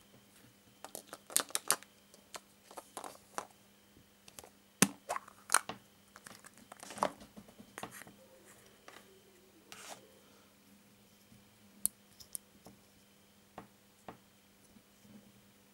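Hands opening a plastic surprise-egg capsule and handling the small plastic toy figure inside: a quick run of sharp plastic clicks, snaps and taps through the first seven seconds or so, then sparser clicks.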